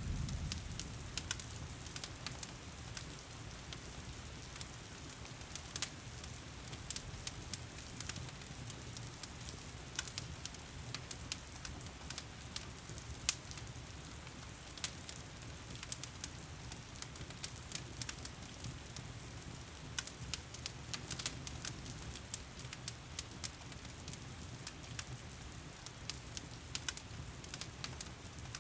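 Fireplace fire crackling with frequent, irregular sharp pops over the steady hiss of heavy rain, with a low rumble underneath.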